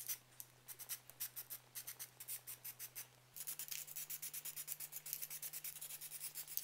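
Aerosol spray paint can: a rapid run of short, sharp bursts, about seven a second, breaking off briefly about three seconds in and then starting again.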